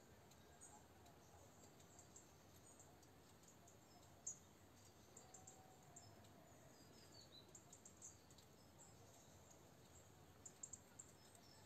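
Near silence: room tone with scattered faint high-pitched chirps and ticks.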